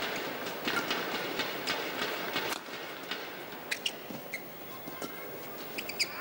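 Badminton rally: sharp cracks of rackets striking the shuttlecock and brief shoe squeaks on the court floor, over crowd noise that drops away about two and a half seconds in.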